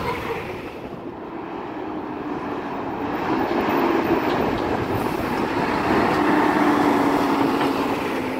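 Garbage truck driving past: steady engine drone and tyre noise from a 2016 Peterbilt 320 Dadee Scorpion side-loader, getting louder as it comes up and passes close.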